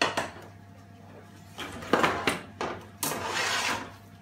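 Metal pots and pans being shifted across a stovetop: a clank at the start, a few knocks about two seconds in, and a short scraping rush near the end as a pan is slid over.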